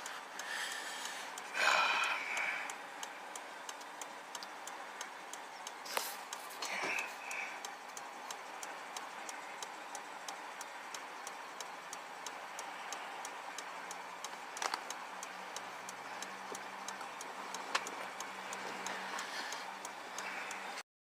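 Steady, rapid ticking inside a stopped car's cabin. A brief louder sound comes about two seconds in, a few sharp clicks follow, and a low hum comes in about two-thirds of the way through.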